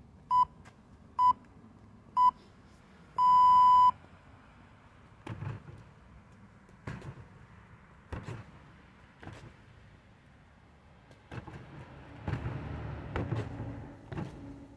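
Workout interval timer beeping three short beeps and then one long beep, the countdown to the start of a round. Strikes without punches then land on a freestanding padded heavy bag: about five single thuds a second or two apart, then a quicker run of thuds near the end.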